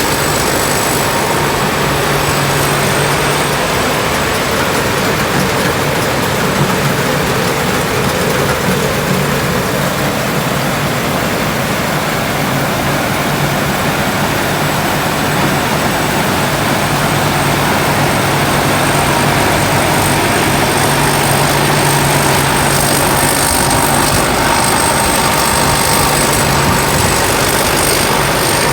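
Rice combine harvester built by Phimai Charoen Kan Chang, its engine running loud and steady, with a thin high whine over the engine noise.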